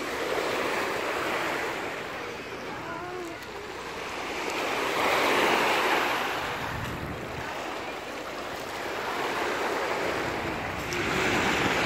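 Small waves breaking and washing up a pebble shore, the hiss swelling and fading several times, loudest about halfway through and again near the end.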